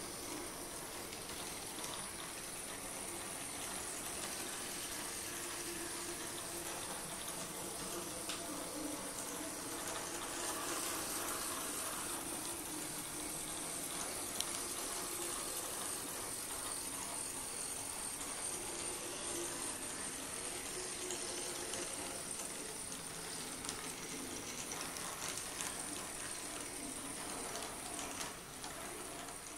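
16番-scale (1:80) brass model of the Ueda Kotsu ED25 electric locomotive running on track: a steady whir from its small motor and gearing, with faint clicks of the wheels on the rails.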